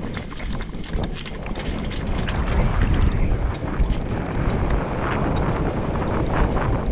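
Wind buffeting the microphone of a camera on a mountain bike riding downhill, mixed with the bike rattling and knocking over a rough dirt trail.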